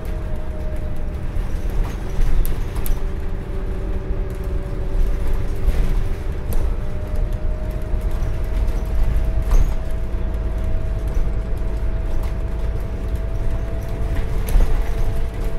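Scania N250UD double-decker bus under way, heard inside the lower saloon: five-cylinder Scania diesel and road rumble with a steady whine that slowly rises in pitch, and a few brief rattles.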